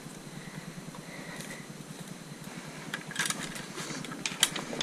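Screwdriver and hand work on a Royal Enfield Classic 500's chrome headlight, over a steady background hiss. A few light clicks and knocks come about three seconds in and again near the end as the headlight rim and lens are taken off.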